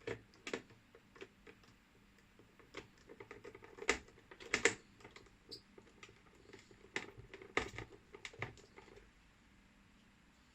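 Irregular light clicks and taps of hard plastic parts being handled as a car instrument cluster is worked on. Clicks come in small clusters about four seconds in and again around seven to eight seconds, then stop near the end.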